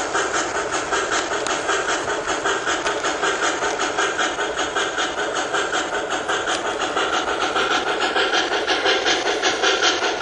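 HO-scale steam locomotive's DCC sound decoder chuffing in a steady, quick rhythm of hissing exhaust beats as the model train runs.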